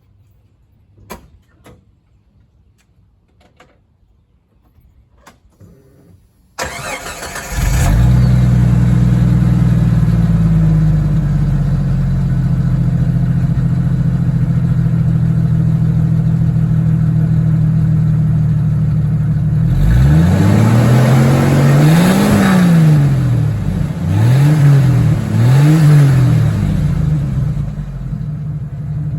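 Jeep Wrangler YJ's 4.0-litre inline-six, with a new exhaust and Thrush Turbo muffler, cranks and starts about six seconds in, then idles steadily. Later it is revved once for longer, then blipped twice quickly, and settles back to idle.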